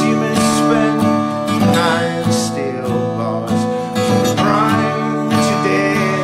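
Background music, led by a strummed acoustic guitar.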